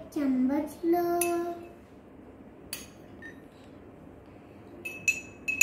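A child's voice with a sliding, then held, sung-like note in the first two seconds. Near the end a metal spoon clinks against glass several times in quick succession, each clink ringing briefly, with a single tap about halfway.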